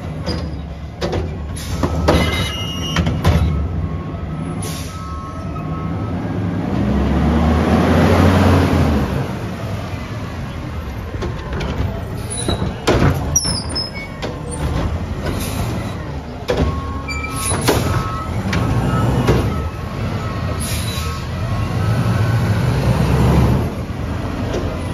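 Front-loader garbage truck with an automated cart arm, its diesel engine running throughout and revving up and back down about seven seconds in. Sharp bangs and clanks of the arm and the plastic yard-waste carts recur throughout as carts are gripped, tipped and set down.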